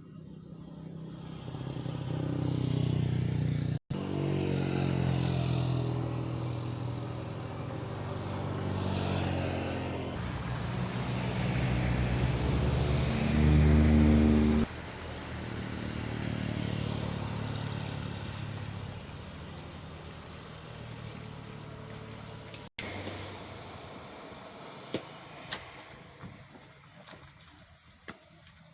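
Motor vehicles passing one after another on a road, engines running under load, the loudest pass ending abruptly about halfway through. In the last few seconds, a steady high-pitched insect buzz over faint traffic.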